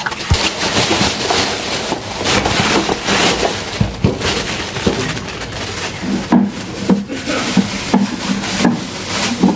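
Tap water running into a stainless steel sink and dishes clinking near the start, then a plastic carrier bag crinkling and rustling in the hands, with many sharp crackles.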